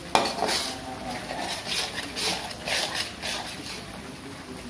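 A metal spatula scraping and stirring chili paste in an aluminium wok, in repeated strokes about twice a second, with a sharp knock of metal on the pan near the start.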